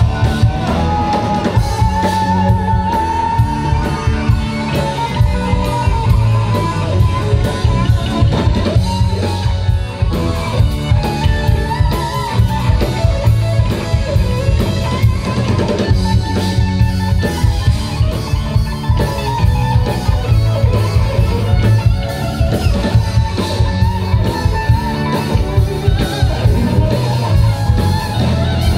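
Live rock band playing hard rock: an electric guitar carries a lead line of long, wavering notes over a driving drum kit and bass.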